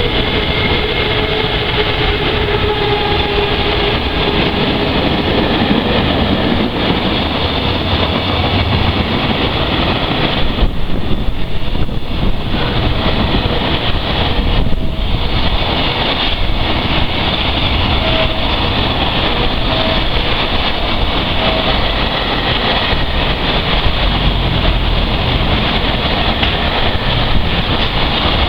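JR Freight freight train hauled by an EF210 electric locomotive passing through a station: a continuous loud rumble of wheels on the rails. It briefly thins twice near the middle, and a few short, faint high notes come through.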